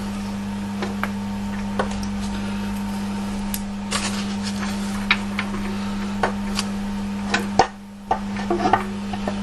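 Scattered sharp metallic clinks and knocks of tools and metal parts being handled, over a steady low hum that briefly drops out near the end.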